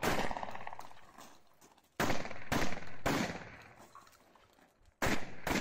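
Kalashnikov TR9 smoothbore carbine in .345TK firing a series of shots, singly and in quick pairs or threes, each shot followed by a short echo.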